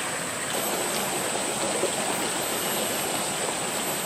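Steady rushing of a flowing stream.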